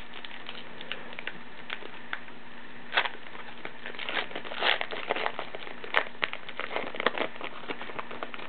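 Foil wrapper of a baseball card pack crinkling and tearing as it is opened by hand, in an irregular run of sharp crackles, loudest about three seconds in and again around the middle.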